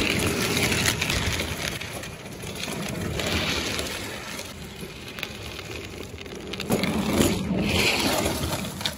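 Electric drift trike sliding across asphalt: the hard plastic rear wheel sleeves scrape and grind over the road, swelling and easing, with a louder stretch near the end.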